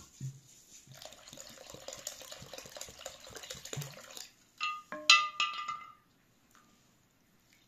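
Water pouring in a thin stream from a clay jug into a glazed bowl of rice and water, stopping about four seconds in. A few sharp ringing clinks follow, the loudest about five seconds in.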